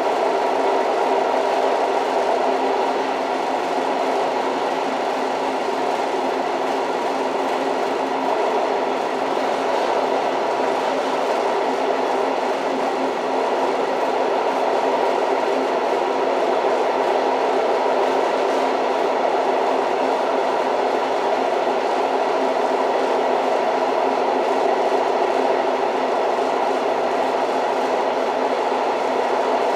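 Old train running steadily: a continuous rumble of wheels on track.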